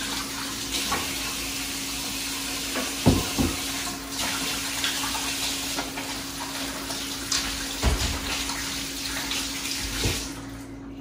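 Kitchen faucet running into a stainless sink while hands are washed under it, shutting off near the end. A couple of dull thumps sound partway through, over a faint steady hum.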